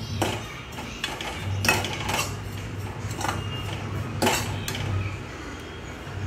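Metal spatula scraping and knocking against a steel pan while stirring dry desiccated coconut. It comes as a handful of separate strokes, the sharpest under two seconds in and again just past four seconds, over a steady low hum.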